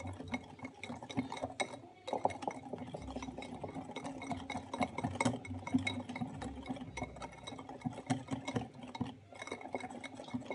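Hand whisk stirring a runny egg-yolk batter in a glass bowl: a quick, continuous clinking of the wires against the glass with light splashing, pausing briefly about two seconds in and again near the end.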